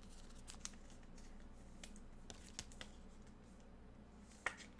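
Trading cards being handled, with faint scattered clicks and rustles and one sharper click about four and a half seconds in.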